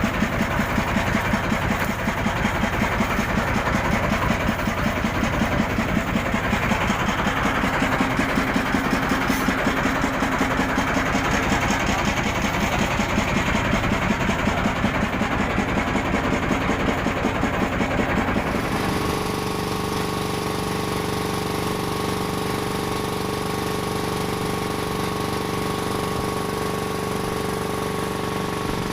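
An engine running with a rapid, even pulsing. About two-thirds of the way in, the sound changes abruptly to a steadier, smoother hum.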